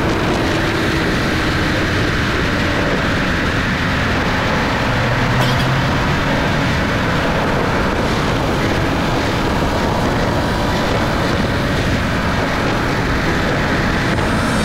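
Subaru BRZ cruising at speed, a steady blend of tyre and road noise with the hum of its flat-four boxer engine. The sound holds level with no sudden changes.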